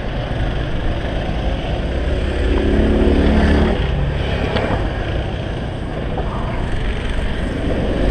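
Go-kart engines running on the track, one engine note rising in pitch for about a second a few seconds in, over a steady low rumble and rubbing from hands handling the helmet-mounted camera.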